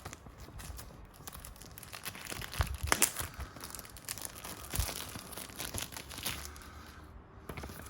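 Paper instruction sheet rustling and crinkling as it is handled and unfolded, in a series of irregular crackles, the loudest about three seconds in.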